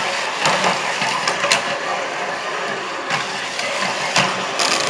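Super-sumo robots' small electric drive motors and gearboxes whining as the robots drive and shove against each other in the sumo ring, with scattered sharp clicks and knocks.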